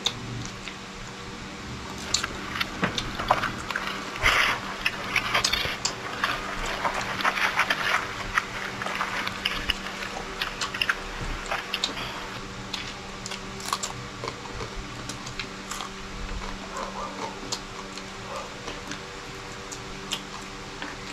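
Close-miked eating of chicken by hand: chewing, biting and tearing meat, with many sharp wet clicks and crackles, busiest in the middle of the stretch, over a faint steady hum.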